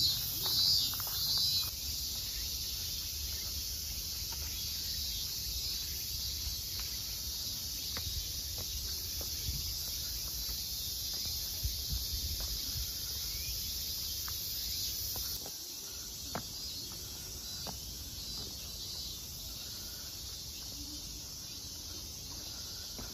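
A steady, high chorus of insects in the surrounding trees, over a low rumble of wind on the microphone that eases about two-thirds of the way through, with a few faint taps.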